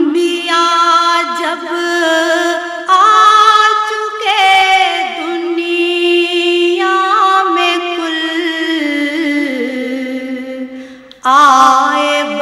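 A solo voice singing long, held, ornamented notes as background vocal music; the phrase fades around eleven seconds in and a new phrase starts loudly.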